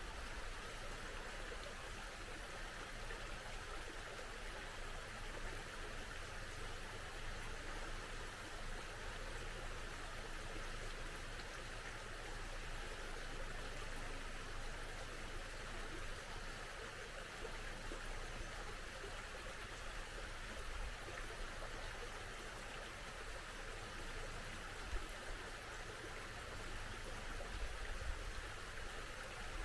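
A small mountain stream flowing steadily over rocks, a constant, even rush of running water. A few brief low bumps come near the end.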